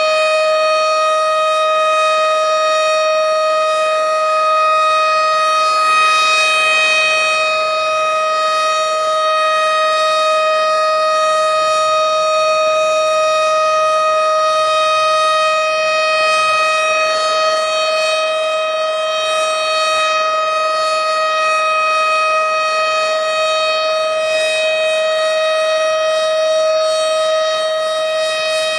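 Tornado warning siren sounding one steady tone with a string of overtones, holding its pitch without rising or falling.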